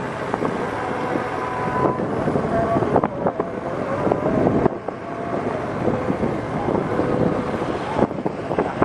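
Wind rushing and buffeting over the microphone of a moving vehicle, with the vehicle's engine running underneath. The noise swells and dips unevenly, with a few short knocks.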